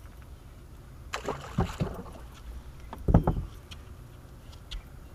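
A small largemouth bass dropped back into the river with a short splash about a second in, then a heavy thump on the bass boat's deck about three seconds in, over a steady low rumble.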